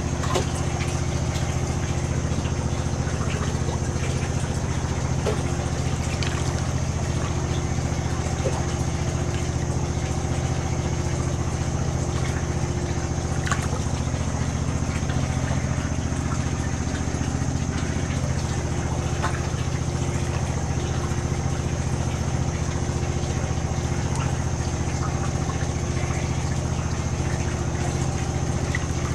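Steady low mechanical hum of a boat's running machinery, with a thin high whine above it and faint scattered clicks.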